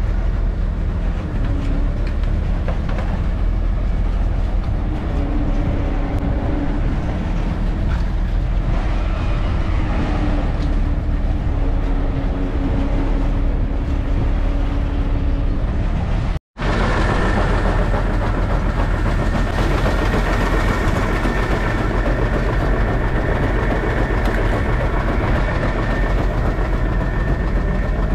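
Fishing boat's crane machinery and engine running steadily with a low rumble. After a sudden cut about halfway, a different steady machine sound with a constant high whine.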